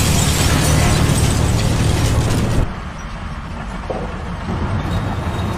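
A heavy engine running under a loud rushing noise that cuts off suddenly about two and a half seconds in; the engine hum carries on after, quieter.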